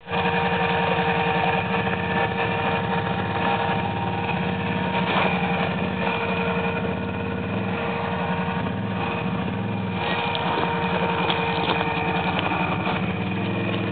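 Quad ATV engine running steadily at low revs as it crawls over rocks, with a constant high tone above the engine note and a few sharp knocks about five seconds in and again near the end.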